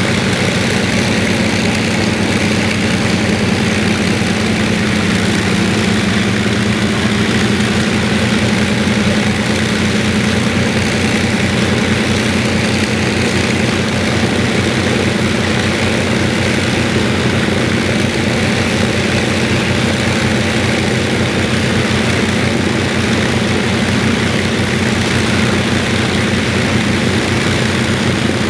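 Avro Lancaster bomber's Merlin V12 piston engines, the two on the port wing, running at idle on the ground with a steady, even beat.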